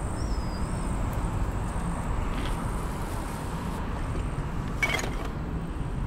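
Steady low outdoor background rumble. About five seconds in comes one short burst of sound as a black plastic garbage bag lands on the heap of waste in the pit.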